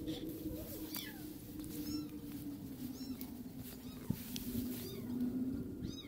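A cat meowing repeatedly, short high-pitched cries about once a second, over a steady low hum.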